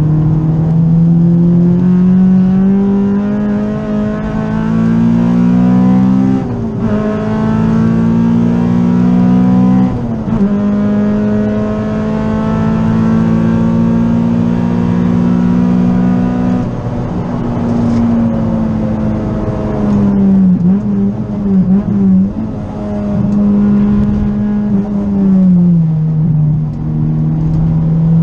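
Honda Civic EG's B18C Type R 1.8-litre four-cylinder VTEC engine, heard from inside the cabin while driven hard. The pitch climbs and drops back at two upshifts about six and a half and ten seconds in, then holds high revs. It falls with uneven blips around twenty seconds in as the car slows and downshifts, and drops once more near the end.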